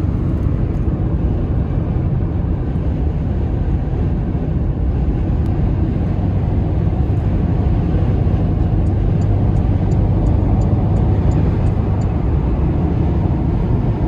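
Steady low road and engine noise from a car driving along a highway, heard from inside the cabin.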